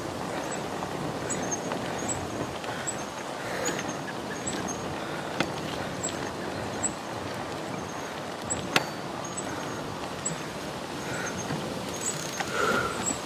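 Steady wind and rolling noise from a bicycle ride, with a few sharp clicks, the loudest about nine seconds in.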